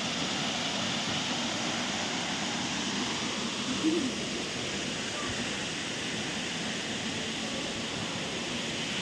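Waterfall rushing: a steady, even noise of falling water, with a brief voice-like sound about four seconds in.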